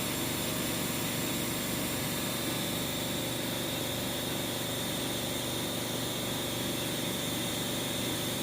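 A machine running steadily: a constant motor hum with a thin, high whine held throughout, unchanging in level.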